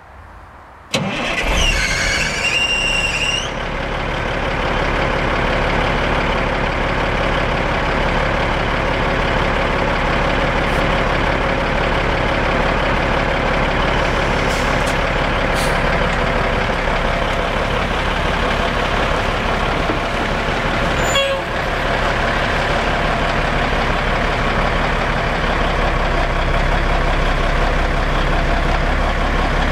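1991 Peterbilt logging truck's diesel engine starting about a second in, with a high squealing whine for a couple of seconds as it catches, then running steadily.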